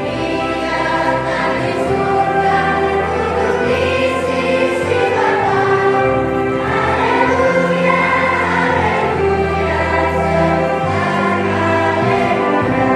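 Children's choir singing a hymn with held notes over a sustained instrumental accompaniment.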